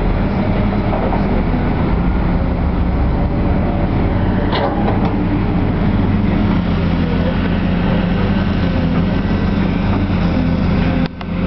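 An engine running steadily with a low, even hum, with a couple of faint knocks about four and a half seconds in.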